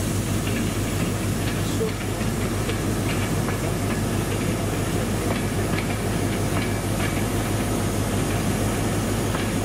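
An arriving LNER InterCity 225 train, Mark 4 coaches led by a driving van trailer with a Class 91 electric locomotive at the rear, rolling slowly past into the platform. Steady running noise over a constant low hum, with faint scattered wheel clicks.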